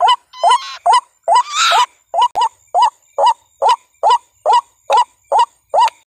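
White-breasted waterhen calls: a short rising note repeated steadily about twice a second, with two harsher, louder screeching calls in the first two seconds.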